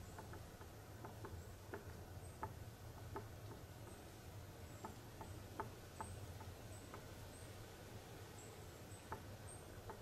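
Quiet forest ambience: faint, irregular small ticks and crackles, with scattered very high, short chirps and a steady low hum underneath.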